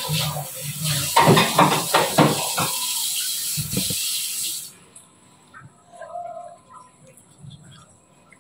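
A steady rushing hiss like running water that cuts off suddenly a little past halfway, with a brief voice-like sound over it early on. After that only faint small sounds remain.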